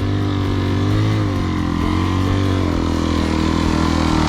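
Motorcycle engine running steadily, its pitch rising and falling gently with the throttle.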